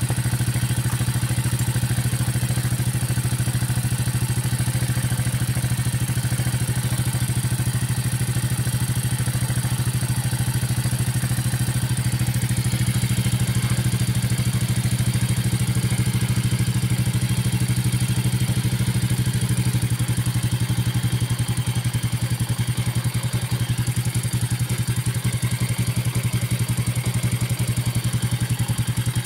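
Yamaha Vega Force's fuel-injected single-cylinder four-stroke engine, freshly rebuilt at the piston and top end, running steadily at idle without an air filter. Its beat grows slightly uneven in the last several seconds.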